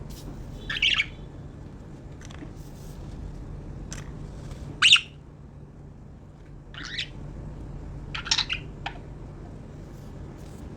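Budgerigars giving short squawking calls, about five spread over several seconds, the loudest about halfway through, over a faint steady low hum.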